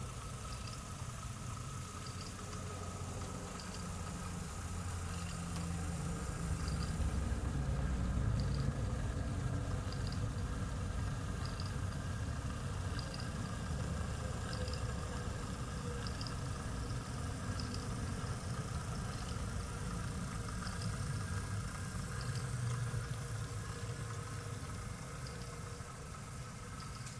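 Model class 08 diesel shunter running on a model railway layout, pushing coaches. A steady low rumble that swells a little between about 6 and 10 seconds in, with light ticks roughly once a second.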